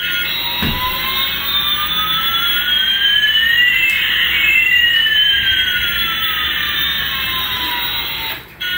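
Electronic jet-engine sound effect from a battery-powered toy Airbus A380 airplane: two synthetic whines, one rising while the other falls, crossing midway. There is a short low thud less than a second in.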